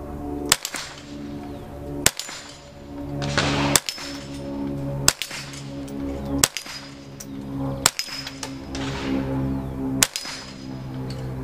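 CBC 7022 semi-automatic .22 LR rifle firing seven single shots, each about one and a half seconds after the last, at steel dueling-tree paddles. Each hit swings a paddle to the other side of the tree.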